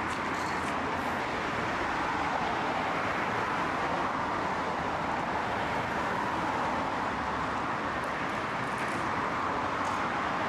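Steady rushing roar of road traffic, even in level throughout.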